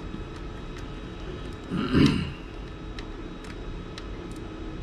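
A few faint clicks as a screw is driven by hand with a screwdriver into a 3D-printed plastic case part, over a steady low background hum. About two seconds in, a short vocal sound from the person doing the work.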